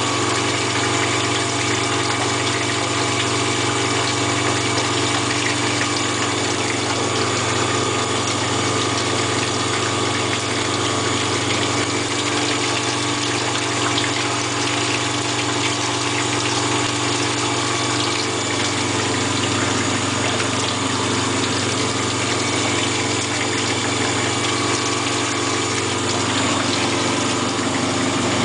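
Homemade waste-oil biodiesel processor running: a one-horsepower electric motor turns a GM power steering pump that pushes oil up to a centrifuge. The result is a steady mechanical hum with a hiss of circulating oil.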